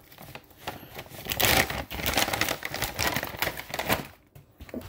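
Crinkling and rustling of plastic dog-treat packaging being handled to get a treat out, with quick clicks and handling knocks, loudest in the middle and dying down near the end.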